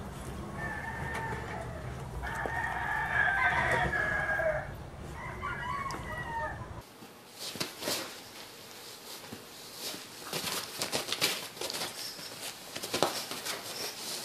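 Newborn husky puppy squealing and whining in high-pitched, broken cries. About seven seconds in, the sound changes abruptly to scattered soft scuffles and knocks of small dogs playing on a fabric dog bed.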